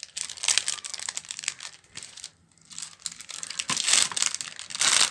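Glossy foil packaging crinkling and rustling in irregular bursts as a foil-wrapped chocolate bar is worked out of its opened black pouch. The bursts pause briefly midway and are loudest near the end.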